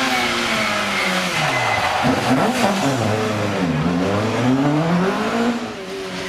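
Mk2 Ford Escort rally car's engine slowing for a hairpin: the revs fall over the first two seconds with quick blips as it changes down. They dip once more in the turn, then rise as it accelerates out and pulls away, easing off near the end.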